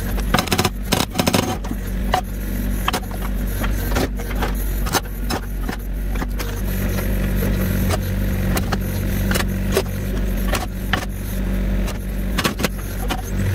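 Compact excavator's diesel engine running steadily, its note getting stronger about halfway through, with irregular clunks and clatter as the hydraulic breaker knocks split chunks of firewood about.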